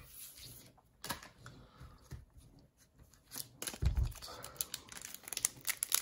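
Foil booster pack wrapper crinkling and being torn open across the top, a run of crackles that grows denser in the second half. There is a dull thump about four seconds in.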